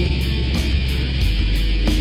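Loud heavy rock music with a steady beat.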